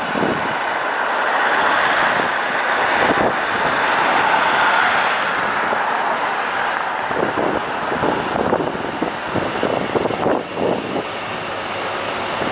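Diesel express passenger train passing at speed. The leading power car's engine swells to its loudest a few seconds in as it comes beneath, then the coaches' wheels clatter over the rails as they run by.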